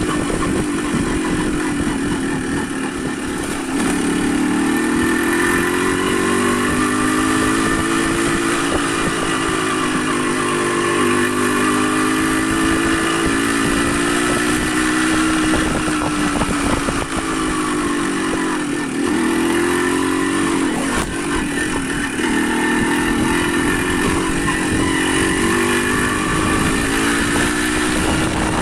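Motorcycle engine running under way, its pitch rising and falling several times as it speeds up and eases off, over a steady rushing noise.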